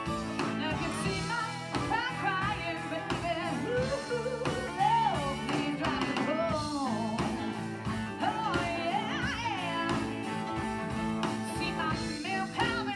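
A woman singing a blues song over a live band, her voice sliding and bending between notes.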